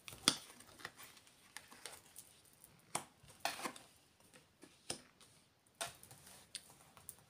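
Faint handling of cards being drawn from a deck and laid down on a cloth-covered table: scattered light taps and flicks a second or so apart.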